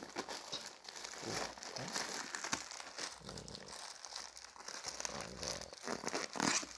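Plastic courier mailer and the black plastic bag inside it crinkling and tearing as they are pulled open by hand: a steady run of rustles and small rips, with one louder rip near the end.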